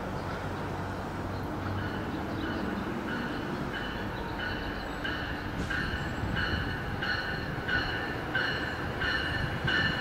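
Bell on an Amtrak Pacific Surfliner's Siemens Charger locomotive ringing steadily, about one and a half strokes a second, as the train pulls into the station, growing louder as it nears. Under the bell is the low rumble of the approaching train.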